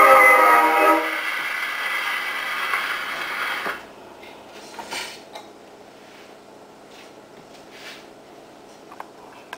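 Victor Victrola VV-60 portable wind-up phonograph playing a 78 rpm record; the music ends about a second in, leaving a steady hiss from the needle in the grooves. The hiss cuts off a little before four seconds in as the needle is lifted, followed by a few light clicks as the record is stopped and the tone arm moved.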